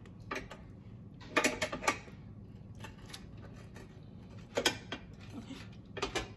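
Scattered clicks and knocks of a metal rotisserie spit and its forks bumping against a plastic air fryer basket as a whole chicken is fitted into it by hand, over a low steady hum.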